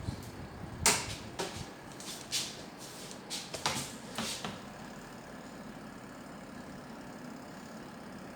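A string of sharp clicks and knocks from handling a washing machine timer and its fittings, then a steady low hum.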